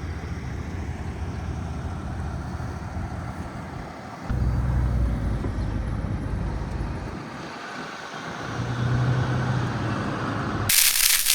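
Vehicle driving, with a steady low engine and road rumble that swells twice. Near the end a sudden loud rushing hiss starts.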